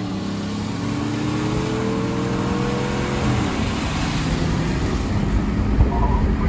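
Engine pulling hard under full throttle, heard from inside a moving vehicle: its note rises steadily for about three seconds, then fades under a growing rush of wind and road noise.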